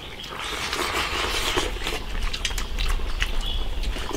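People slurping soup and chewing from bowls, with many small wet clicks, over the steady bubbling of the stew simmering in the wok.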